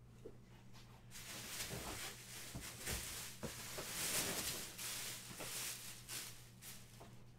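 Crinkling and rustling of a foil trading-card pack wrapper and cards being handled, starting about a second in and stopping shortly before the end, with irregular sharp crackles.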